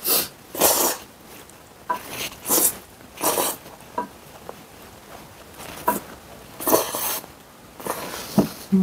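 Spicy buckwheat noodles slurped into the mouth in several short, loud pulls, with a few light clicks of chopsticks against ceramic bowls between them.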